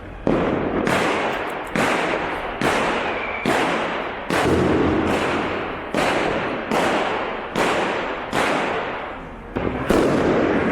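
Consumer fireworks exploding: a steady string of loud bangs, a little more than one a second, each fading away before the next.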